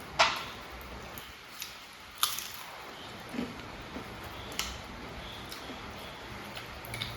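Eating sounds: crisp samosa pastry crunching and chewing, with a few sharp clicks, the loudest just after the start and about two seconds in.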